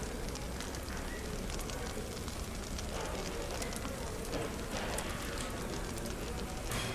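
Fireplace crackling with many small sharp pops over a steady café background with a faint murmur of indistinct chatter.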